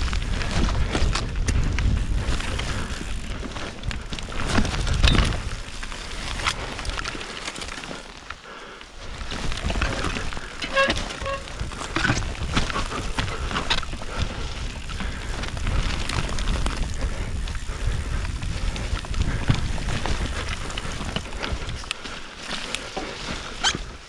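Mountain bike (a Nicolai Geometron G1) riding down a rough snowy trail: tyre noise and a constant clatter of the bike over bumps, with wind rumbling on the microphone, loudest in the first few seconds. About eleven seconds in come two short pitched chirps.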